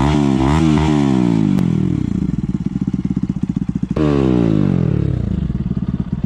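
Bajaj Pulsar NS160's single-cylinder engine revved in place through an aftermarket Akrapovic full-system exhaust: quick throttle blips that fall back to a steady idle, then one sharp rev about four seconds in that drops back to idle.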